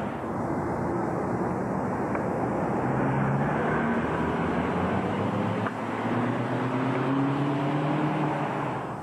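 Steady outdoor rush of street traffic, with a motor vehicle's engine hum rising slightly in pitch twice as it drives by.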